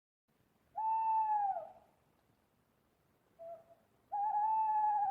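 Owl hooting: two long, steady hoots, each dropping in pitch at its end, with a short faint note between them.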